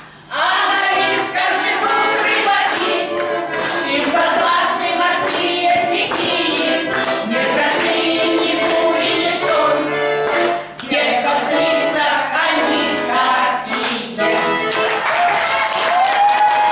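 A song with instrumental accompaniment: voices singing, ending on a long held note.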